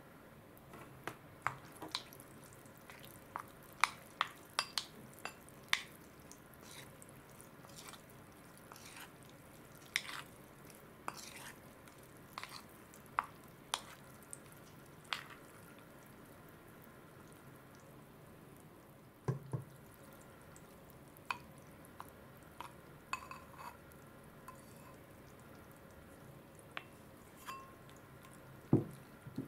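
Wooden spoon stirring and scooping salmon roe in its soy marinade in a porcelain bowl: irregular wet clicks and drips, busier in the first half. Two duller knocks come about two-thirds of the way in and near the end.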